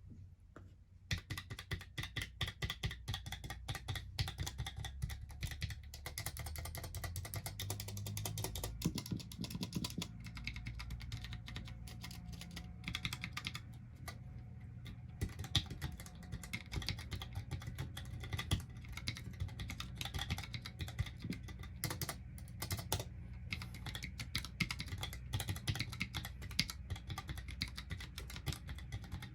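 Typing on a Mistel Barocco MD650L split mechanical keyboard with low-profile Cherry ML switches: fast, continuous keystroke clicks that start about a second in, over a low steady hum.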